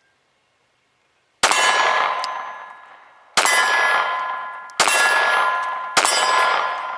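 Four shots from a Glock 26 9mm pistol, about a second and a half to two seconds apart, each followed by a long metallic ringing like a struck steel target.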